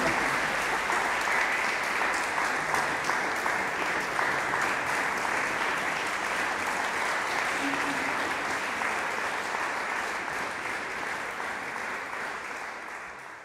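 Audience applause: dense clapping that slowly dies down and fades out at the end.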